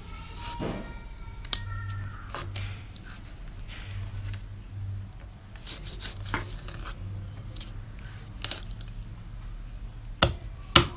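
A chef's knife slicing through the skin and flesh of a large wallago catfish on a wooden cutting board: scattered short cutting and scraping sounds over a low steady hum, with a few sharp knocks near the end.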